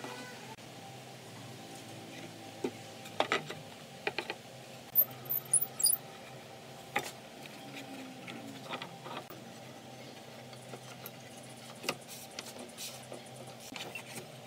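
Wooden boards and steel pipe clamps handled on a workbench: scattered knocks of wood against wood and light clinks of the clamps, over a steady low hum.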